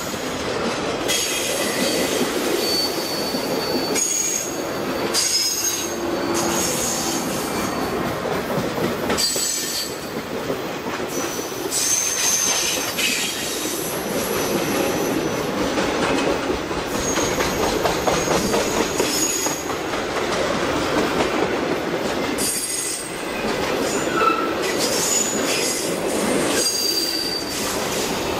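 Freight train cars rolling past on the rails: a steady rumble of steel wheels, with short high-pitched wheel squeals coming and going.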